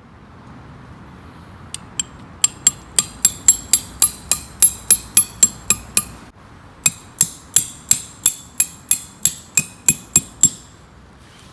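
A hammer striking metal in two quick runs of even blows, about four a second, each with a bright metallic ring, with a short pause about six seconds in.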